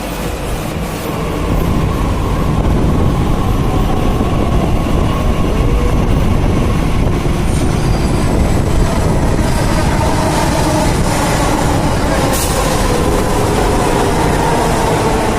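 Delhi Metro train running, a steady rumble with a whine of electric traction motors, growing louder over the first two seconds. A short sharp click about twelve seconds in.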